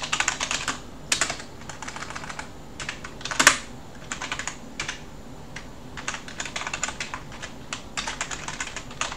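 Typing on a computer keyboard: quick runs of keystrokes broken by short pauses as a command is keyed in, with one louder, longer burst of noise about three and a half seconds in.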